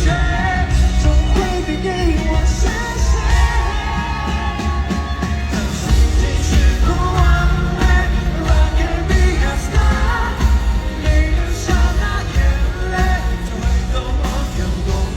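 A pop song with a sung vocal over a steady bass beat.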